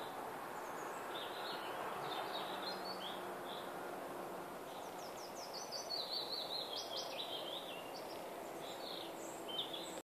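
Songbirds singing: short high chirped phrases, then a longer song of quick notes stepping downward about six seconds in, over a steady background hiss.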